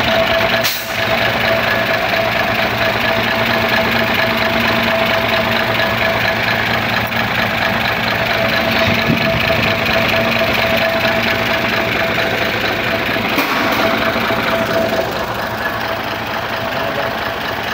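Isuzu 6HK1 inline-six diesel engine idling steadily, running on a newly fitted fuel filter assembly after a loss of power caused by a failed filter pump and air in the fuel system.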